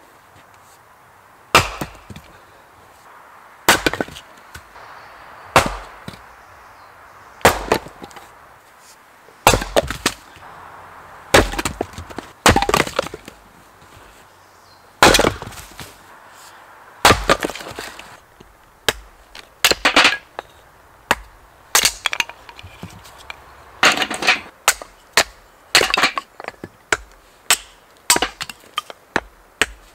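Firewood being chopped and split by hand: sharp strikes into wood with a splintering crack, about one every two seconds at first, then coming faster and in closer clusters in the second half.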